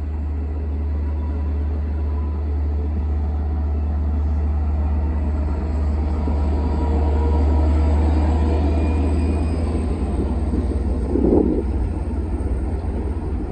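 Long Island Rail Road diesel push-pull train of bilevel coaches passing, hauled by a DE30AC diesel-electric locomotive: a steady low engine rumble over the noise of wheels on the rails, with a few short bumps about eleven seconds in.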